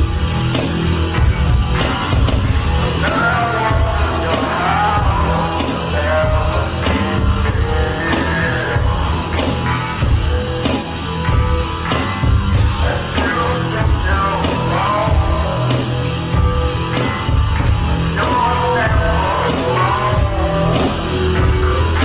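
Hard rock wrestling entrance theme playing loud and steady: a driving drum beat with about one and a half hits a second under guitars. A crash cymbal comes about 3 seconds in and again about 13 seconds in, and a bending lead line rises over the top.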